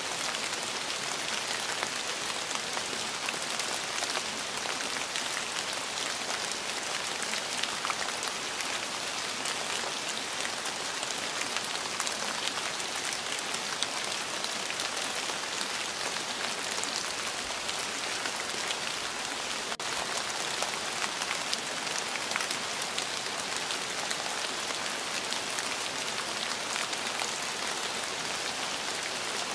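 Steady rain: an even hiss of rain falling on a surface, with fine scattered drop ticks and one momentary dip about two-thirds of the way through.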